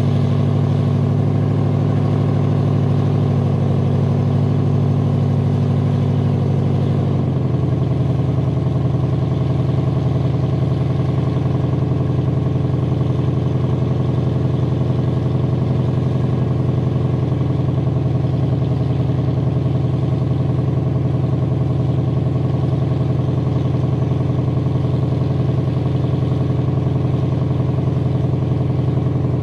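A 1971 Pontiac 455 V8 with a two-barrel carburettor and points ignition idling steadily through its single exhaust as it warms up after a cold start. The idle note shifts slightly about seven seconds in, then settles.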